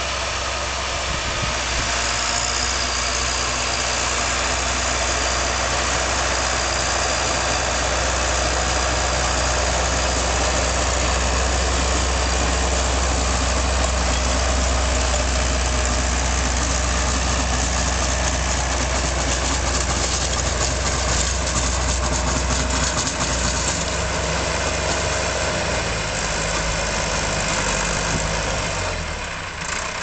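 Massey Ferguson tractor's diesel engine running steadily, with a strong low drone; its note changes over the last few seconds.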